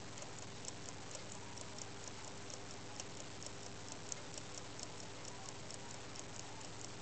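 Tourbillon pocket watch's escapement ticking, rapid and even at about five ticks a second.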